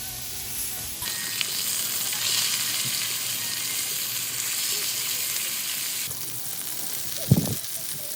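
Pork belly and garlic frying in their own fat, a steady sizzle, with a single low thump near the end.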